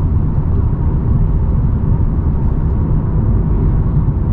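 Steady engine and road noise inside the cabin of a Mk7.5 Volkswagen Golf R cruising, its turbocharged 2.0-litre four-cylinder running on a Stage 1 ECU tune.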